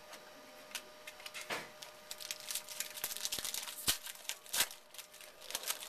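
A trading-card pack wrapper being torn open and crinkled by hand: a run of crackling rustles with a few sharper clicks, the loudest about four and four and a half seconds in.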